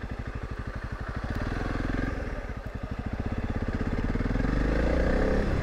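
Honda CRF300 Rally's single-cylinder four-stroke engine running at low revs on a dirt track, each firing pulse distinct. It grows louder and the revs climb over the last second or two as the bike picks up speed.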